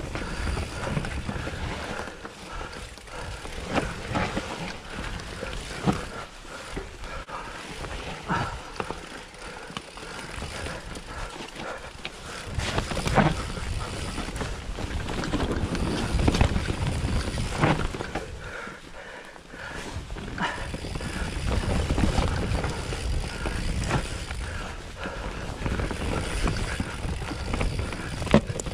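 Commencal Meta V4.2 mountain bike ridden down a forest dirt trail: a steady rush of tyre and wind noise with frequent sharp knocks and rattles as the bike runs over roots and bumps, louder through the middle and later stretches.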